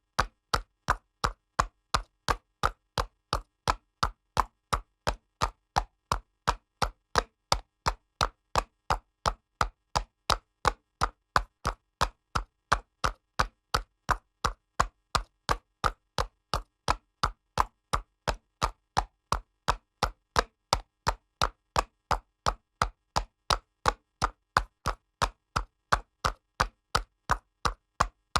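Horse trotting on pavement: hooves clopping on the hard surface in an even, unbroken rhythm of about two to three sharp clops a second.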